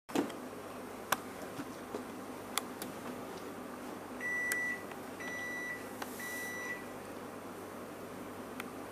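Refrigerator's door-open alarm beeping three times, each beep a steady single tone about half a second long and evenly spaced, sounding because the fridge door is held open. A few sharp clicks come before the beeps.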